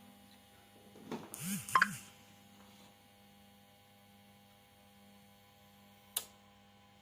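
Steady electrical hum from a Luminous UPS inverter running under load, with a brief rustling clatter about a second in and a single sharp click near the end, as the UPS changes over to mains power to start charging.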